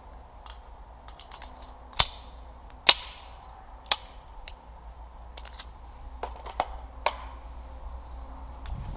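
Pistol shots fired during a timed qualification string: three loud sharp reports about a second apart, followed by several fainter cracks.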